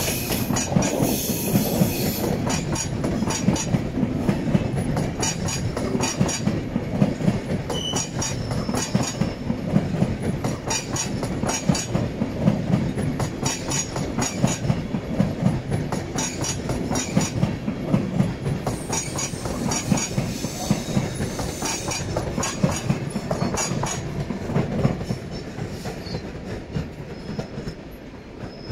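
SBB electric passenger train rolling over the pointwork of a station approach, its wheels clacking in repeated groups over rail joints and switches above a steady rumble. The sound fades near the end as the last car moves away.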